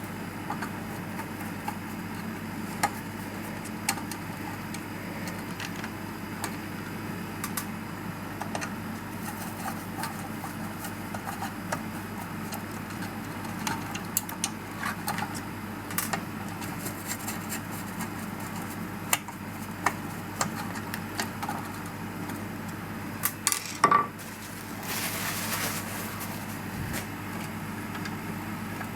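Scattered light metallic clicks and taps of screws, tools and small metal parts as a lawnmower carburetor is taken apart by hand, over a steady low hum. A few louder knocks come near the end, followed by a brief hiss.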